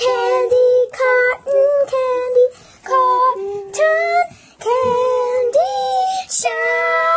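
A child singing a short theme-song tune in separate held notes, ending on a long sustained note near the end.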